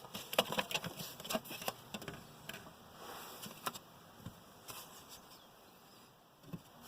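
Irregular light clicks and taps of plastic interior trim being handled and pried at under a Volvo XC90's dashboard, quick at first and then sparser.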